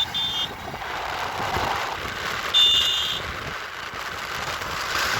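A motorcycle being ridden, its engine and wind noise running steadily. Short high-pitched beeps sound twice at the start, and a longer one about two and a half seconds in.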